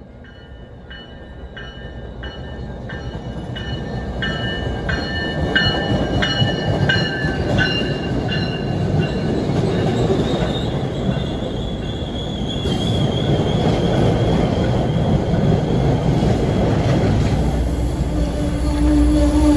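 MBTA commuter train pulling into the station, pushed by an HSP46 diesel locomotive with the cab car leading: a bell rings about twice a second while the rumble of the train on the rails grows steadily louder, and a high wheel squeal comes in about ten seconds in.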